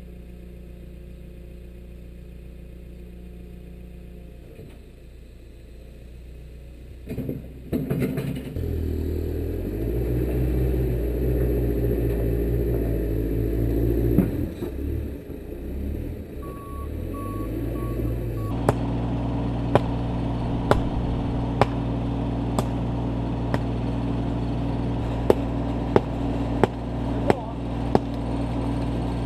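Diesel engines of earthmoving machines running. A Manitou MT 1335 telehandler's engine revs up and down as it works its bucket, then, after a change at about 18 seconds, a Kubota U25 mini excavator's engine runs steadily under a dozen sharp, irregular knocks.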